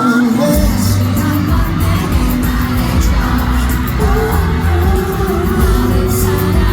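Live pop song played loud over a concert hall's sound system, with a singing voice over the band; the bass and drums come in strongly about half a second in.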